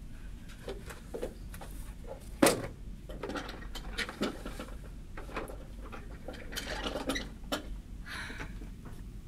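Papers, folders and small objects being handled on an office desk: a string of small clicks, knocks and rustles, with one sharp knock about two and a half seconds in and a short rustle near the end.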